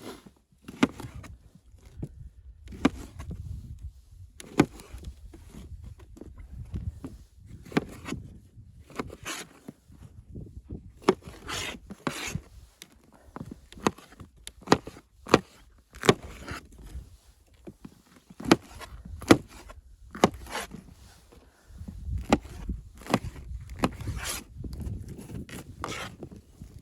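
Irregular sharp knocks and clicks, sometimes about two a second, over low scraping and rubbing, like wood being handled or worked.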